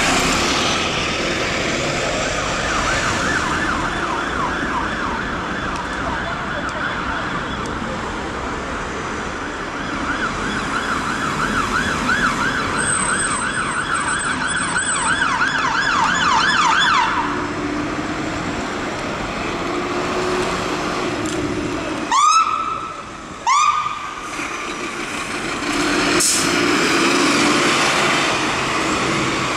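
Scania P280 fire engine's siren on a fast yelp, sweeping up and down several times a second, until it stops. About five seconds later come two short, loud rising whoops about a second and a half apart, then the truck's engine as it passes through traffic.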